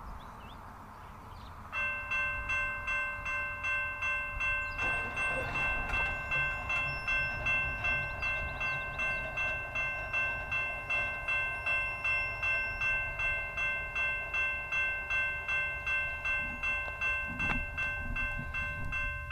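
Railroad grade-crossing warning bell starting up about two seconds in and ringing steadily at about two strokes a second: the crossing signals have activated for an approaching train. A single knock sounds near the end.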